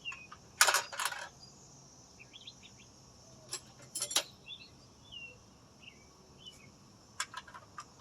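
Sharp metallic clinks and clatters of tools or small metal parts, in three short clusters, with birds chirping and a steady insect drone in the background.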